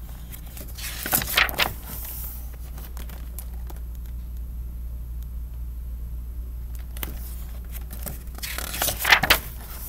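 Pages of a hardcover picture book turned by hand: two rustling swishes of paper, about a second in and again from about seven to nine and a half seconds in, over a low steady hum.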